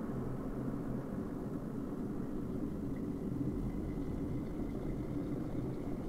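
Smeg mini electric kettle heating a minimum fill of water: a steady low rumble and hiss from the water, with a faint thin high whine joining about halfway through.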